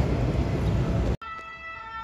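Loud, low rumble of passing heavy traffic, cut off abruptly about a second in. It gives way to a two-tone emergency-vehicle siren, at first faint and slowly growing louder.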